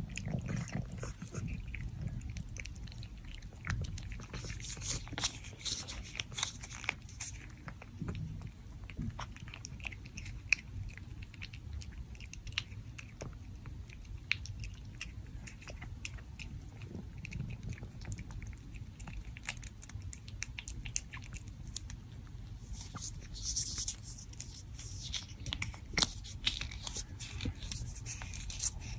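A pet chewing a treat: many small, crisp crunches and clicks in an irregular run.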